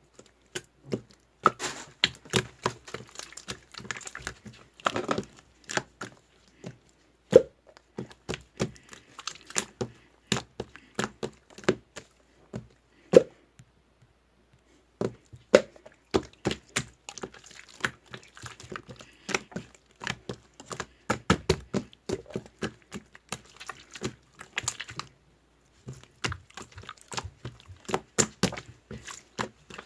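Irregular sharp clicks and knocks in quick succession, like small hard objects being tapped or handled, with a couple of short breaks.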